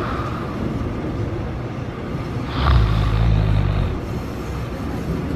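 Subway train running, heard from inside the car: a steady low rumble, with a louder low hum swelling for about a second midway.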